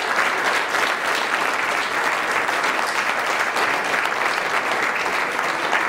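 Stand-up comedy audience applauding a joke, with dense, steady clapping.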